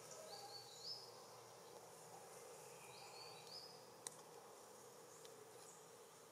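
Faint outdoor ambience with a steady, insect-like background hum. Two short, high chirps, each rising in steps, come about a second in and again around three seconds, and a single sharp click follows at about four seconds.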